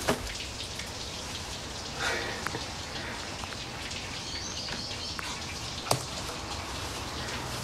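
Steady patter of rain, with a sharp click just after the start and another about six seconds in.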